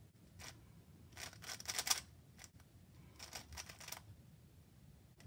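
Stickerless Megaminx puzzle being turned by hand: faint runs of plastic clicking as its faces are twisted, in three short bursts.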